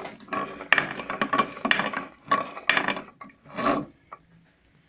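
Crankshaft with freshly fitted connecting rods being turned by hand in a Dnepr MT boxer-twin crankcase: a run of metallic clicks and light knocks, several a second, tapering off near the end. It turns without binding.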